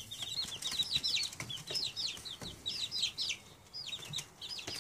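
A group of young chicks peeping continuously, several short high peeps a second, each falling in pitch. A few soft knocks sound among them.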